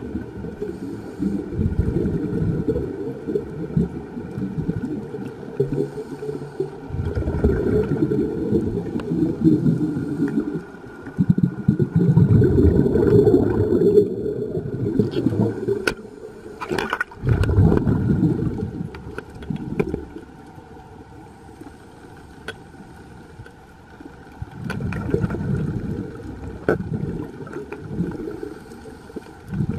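Underwater rumble of moving water and bubbles against the camera, coming in surges of a few seconds with quieter gaps between, and a few sharp clicks near the middle.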